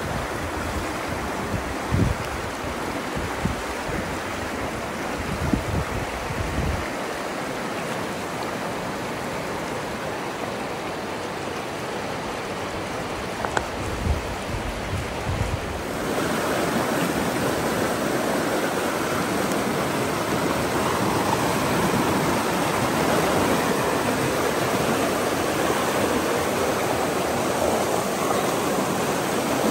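Fast river water rushing over rocks, a steady rush, with low gusts of wind on the microphone in the first half. About halfway through it changes to a louder, fuller rush of white-water rapids.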